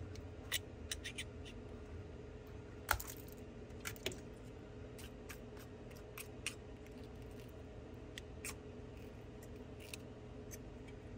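Scattered light clicks and scrapes of a metal blade and tools against an iPhone's cracked back glass and the metal clamp holding it as glass fragments are picked off, the sharpest click about three seconds in. A faint steady hum runs underneath.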